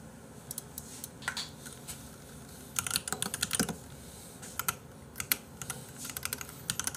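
Computer keyboard being typed on in several short runs of key clicks with pauses between them.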